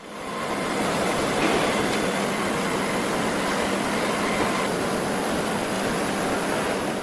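A steady rushing noise with little bass, fading out near the end.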